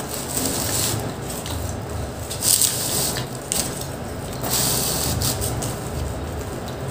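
Close-up eating sounds of pizza: chewing and wet mouth sounds, with a few short rustling bursts as slices are pulled apart on the paper liner of the pizza box.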